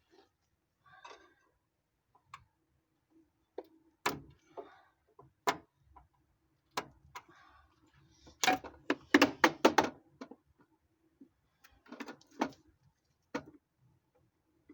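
Sharp clicks and knocks of a tool working at a plastic ABS sensor wire connector to release and unplug it. The clicks are scattered at first, then come in a quick run about nine seconds in, with a few more near the end.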